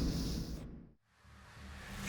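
A low rumble fading away, cutting off to silence about a second in; a faint low hum and hiss then creep back up.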